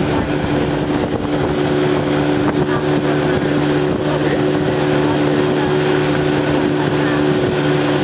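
90-horsepower outboard motor running steadily at towing speed, a constant hum of several engine tones over the rush of the boat's wake.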